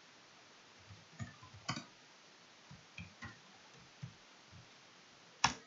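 Computer keyboard being typed on: a string of light, irregular key clicks, then one sharper, louder click near the end.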